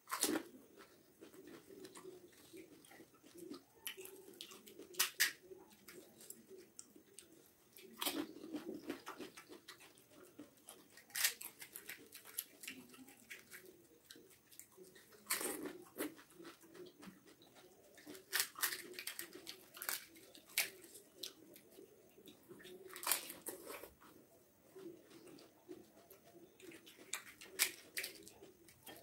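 Crisp, hollow fried panipuri shells being cracked open and crunched and chewed, with a sharp crunch every few seconds and quieter wet chewing between them.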